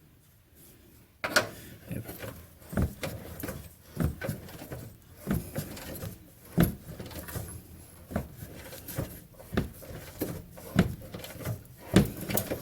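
Irregular knocks and clanks of tools and metal parts being handled, starting about a second in and coming roughly twice a second, uneven in loudness.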